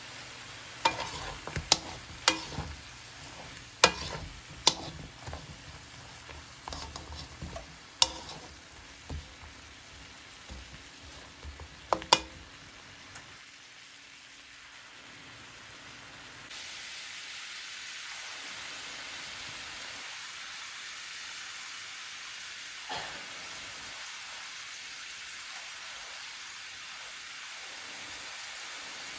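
Pork riblet pieces and sliced onion frying in a nonstick wok while being stirred. Over the first dozen seconds a utensil clicks and scrapes against the pan many times, then a steady sizzle takes over, with one more knock partway through.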